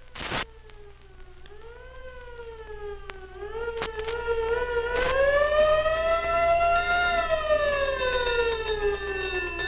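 Siren wailing, its pitch slowly rising and falling with a brief dip now and then, and growing louder about three and a half seconds in. A short sharp click comes just at the start.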